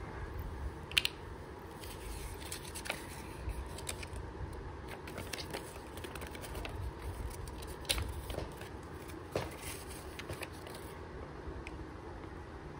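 Paper rustling and crinkling as a folded instruction leaflet is handled and opened out, with scattered small clicks and taps; a sharp click about a second in.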